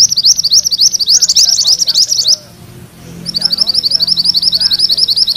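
Mantenan kuning songbird singing its rolling (ngerol) song: fast runs of high, upward-slurred chirps at about eight notes a second, in two long phrases with a short break a little before halfway.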